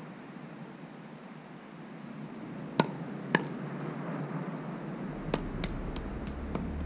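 Sharp knocks of a rusty metal object, pulled from the canal with a fishing magnet, against the concrete canal edge: two knocks about half a second apart, then a quick run of lighter taps near the end.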